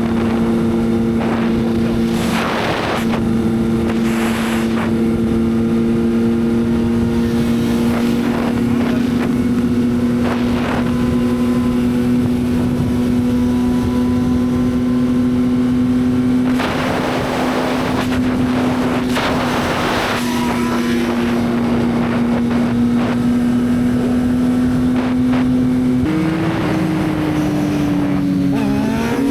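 Yamaha XSR900's inline-three engine running at a steady cruising pitch, with rushing noise swelling several times. Near the end the engine note shifts and then climbs again, as with a gear change and throttle.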